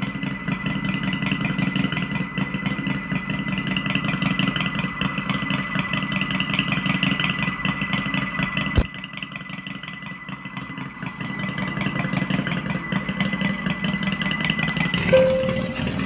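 Simulated Harley-Davidson V-twin engine sound, generated by the EUC World app for a King Song KS-18XL electric unicycle and played through a speaker as a pedestrian warning, idling steadily. A single sharp click comes about nine seconds in, after which the engine sound is slightly quieter before it builds up again.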